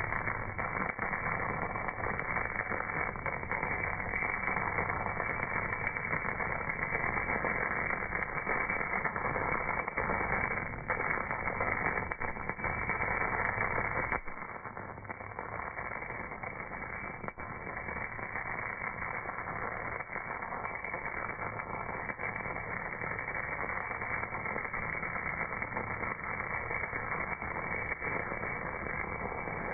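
MAG welding arc on a cast part, slowed down: a dense, muffled crackling hiss with scattered small pops. The low rumble drops away about halfway through, and the sound goes on more thinly.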